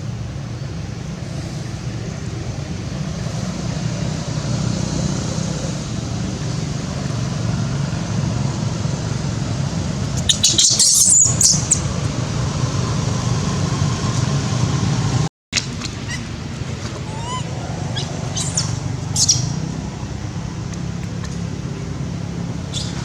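Steady low rumbling background noise. About ten seconds in comes a burst of shrill, high squealing lasting a second or two, and a few short high chirps follow later.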